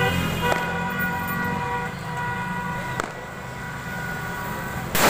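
A steady droning tone with several overtones, then a large firecracker bomb going off with a single loud bang right at the end.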